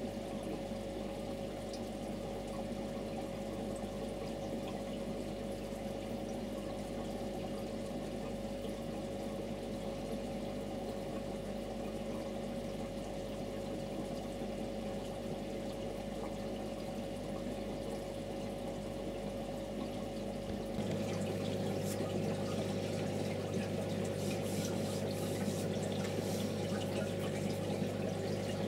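Aquarium pump and filter running: a steady trickle of water over a constant motor hum. About three quarters of the way through the sound changes at once to a slightly louder water noise with a lower hum and more fizzing.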